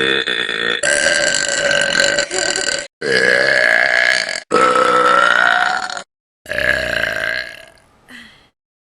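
Women belching deliberately, a run of about five long, drawn-out burps, one straight after another. The last one trails off near the end.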